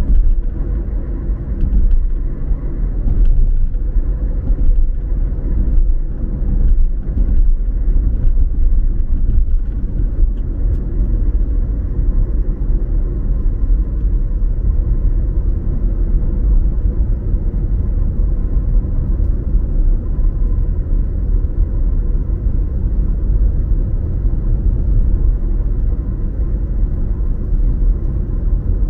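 Steady low rumble of a car driving, heard from inside the cabin: tyre and road noise with the engine underneath. A few faint light knocks come through in the first third.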